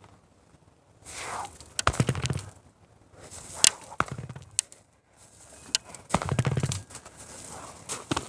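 Kicks and punches landing on a hard plastic punching bag: a cluster of thuds and smacks about two seconds in, single sharper smacks after it, and another cluster about six seconds in.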